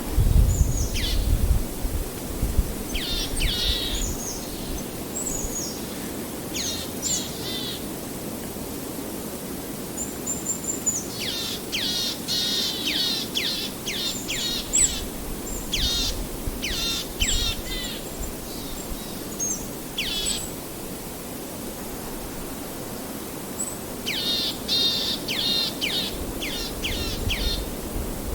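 Forest songbirds calling in quick runs of short, sharply falling notes, in bursts several times, over a steady rush of a flowing river.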